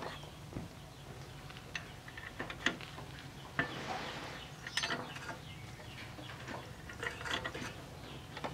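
Metal hand tools clicking and scraping on the exposed valve gear of a two-wheel tractor's single-cylinder diesel engine: scattered light metallic clicks, with a short rasping scrape about four seconds in.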